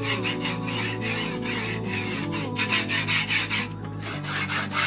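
An SBR16 linear bearing block pushed by hand along its steel rail, a rasping rub made of many short strokes. Background music with sustained notes plays underneath.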